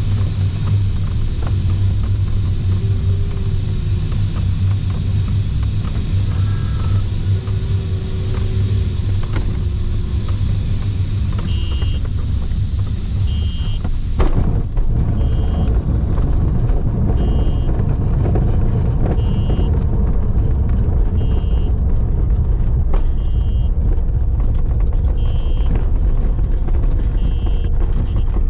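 Low, steady rumble in a sailplane cockpit during the landing, with a single sharp knock about halfway through. From just before the knock, short high electronic beeps repeat about every two seconds.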